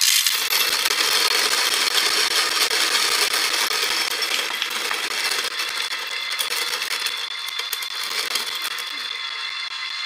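Comandante C40 hand grinder driven by an Aikamo motor base, grinding a small dose of coffee beans. A dense crackling of beans being crushed starts suddenly, over the steady running of the motor, and thins out and gets quieter in the second half.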